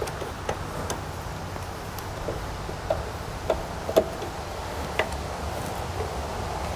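Scattered light clicks and taps from hand-tightening the carburetor mounting bolts and handling the parts, irregularly spaced, the sharpest about four seconds in, over a low steady hum.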